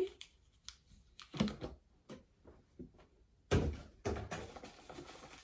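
Cardboard camera box and its contents being handled on a desk: a string of light knocks, with a heavier low thump about three and a half seconds in, then soft rustling.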